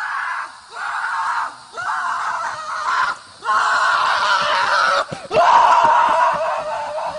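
Five loud screams in a row, each lasting about one to one and a half seconds, with short breaks between them.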